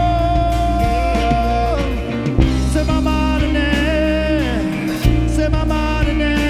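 Worship band playing over a steady bass, with a few drum hits and a lead melodic line that slides down in pitch several times.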